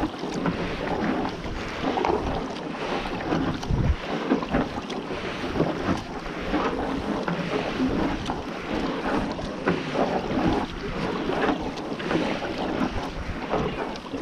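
Kayak paddle strokes splashing and dripping in calm sea water, with water lapping at the hull of a Pelican Summit 100 sit-in kayak and wind buffeting the microphone. A single low thump comes about four seconds in.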